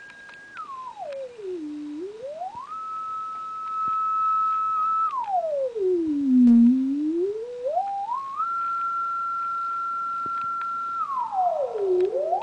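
Pure sine-wave test tone for a spring reverb test, swept in pitch by hand. It holds high, glides down to a low hum and climbs back up, three times in all, with a short hold at the high pitch between sweeps.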